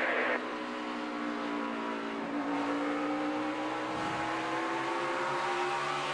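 NASCAR Cup stock car's pushrod V8 at racing speed, heard on board the car. The engine note is steady and climbs gently, peaking about halfway through, then eases off slightly.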